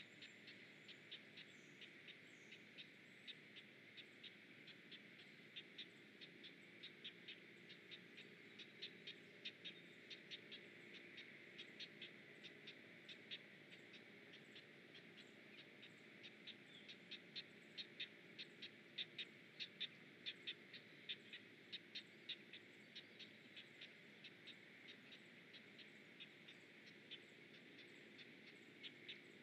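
Great blue heron nestlings' begging calls, heard faintly: a long run of short, sharp ticks about three a second, louder for a few seconds past the middle.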